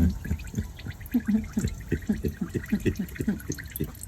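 Engine oil dripping and glugging from the drain into a catch pan, a quick run of drips about three or four a second that starts about a second in.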